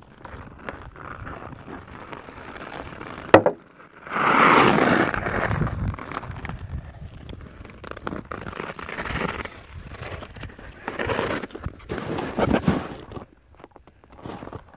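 Hockey skate blades scraping and carving on outdoor lake ice, with a loud scraping hiss from about four to six seconds in and shorter swishes later. A single sharp knock a little over three seconds in.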